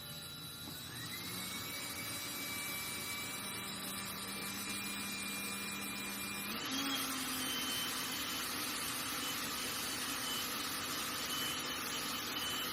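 Electric drill running with a 1/4 inch bit, drilling out a sheared mower blade bolt. The steady motor whine rises in pitch about a second in and steps up again about two-thirds of the way through.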